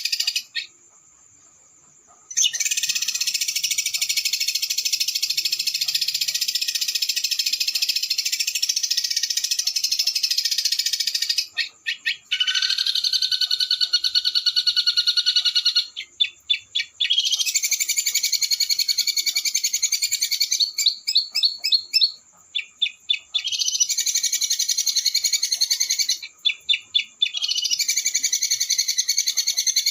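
Small songbird's recorded song in long runs of very rapid, high-pitched trilling, the 'roll speed' trill used as a training recording for songbirds. The runs are broken by short gaps and by bursts of separate staccato notes.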